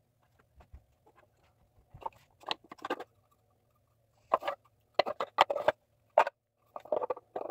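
Irregular rustling, scratching and light knocks of an elf doll and its small days-till-Christmas countdown sign being handled, in short clusters a second or so apart.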